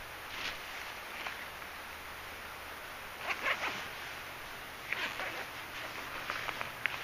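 Steady rushing of a river, with short bursts of rustling and small clicks about three and a half seconds in, again at five seconds and near the end.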